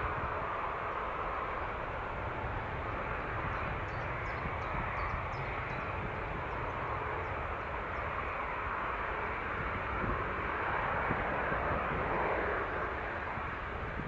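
Airbus A380's four jet engines running, heard from behind the aircraft as it moves away along the runway: a steady rushing jet noise over a low rumble, swelling slightly near the end.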